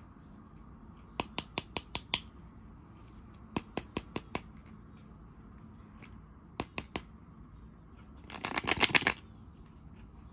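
Fingernails tapping on the hard plastic shell of a toy capsule ball: quick runs of sharp clicks, five, then five, then three, then a fast flurry of taps near the end.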